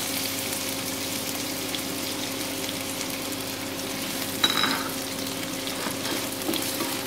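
Finely chopped onions sizzling in hot oil in a nonstick kadhai as they go in and are stirred with a spatula, a steady frying hiss over a faint steady hum. A brief knock sounds about four and a half seconds in.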